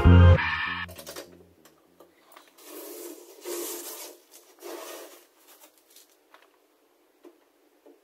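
Background music fades out in the first second, then three short rustling, tearing pulls of masking tape being peeled off a painted body panel, with a few faint clicks in between.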